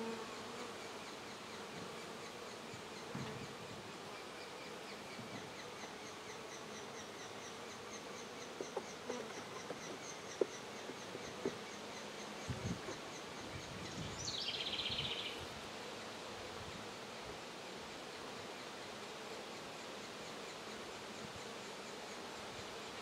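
Honey bees (Saskatraz) buzzing steadily in an open hive box, a hum that echoes in the box. A few light knocks and clicks come in the middle.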